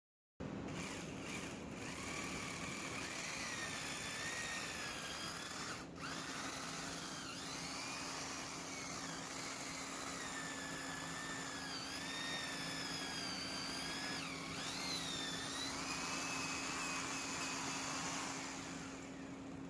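A small electric power tool motor running steadily, with a hiss and a high whine that wavers up and down in pitch, starting abruptly.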